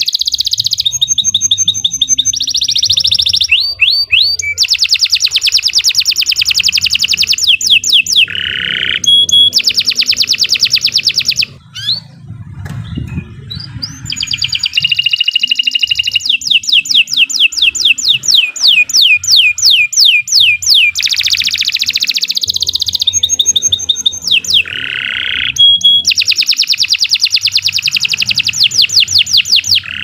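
Domestic canary singing a long, loud song of rapid trills and fast repeated notes, breaking off briefly about halfway through and then going on.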